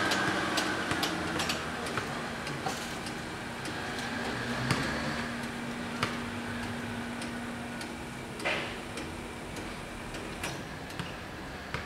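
Outdoor street background as a passing car's engine fades away, then scattered sharp ticks at irregular intervals over a faint steady hum, with a short rushing burst about eight and a half seconds in.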